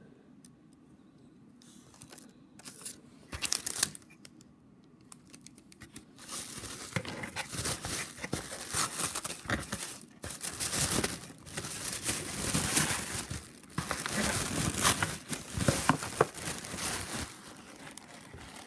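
Tissue paper rustling and crinkling as it is folded back from a box. A few faint crackles at first, then steady crinkling from about six seconds in.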